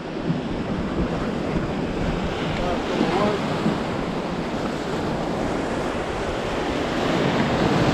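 Sea surf washing steadily, with wind buffeting the microphone. A faint voice is heard briefly about three seconds in.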